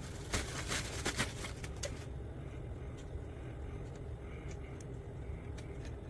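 A cluster of clicks and rustles for about the first two seconds, then a steady low rumble with a few faint ticks.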